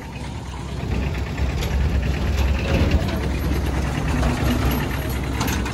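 Tata Ace mini-truck driving slowly past, its engine running and loudest about two to three seconds in as it goes by.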